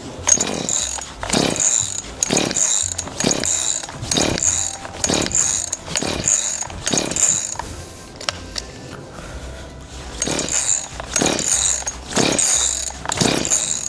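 Recoil starter of a Ryobi 40cc two-stroke chainsaw being pulled over and over, about one pull a second: eight pulls, a short pause, then four more. The engine does not catch, which the owner takes for flooding.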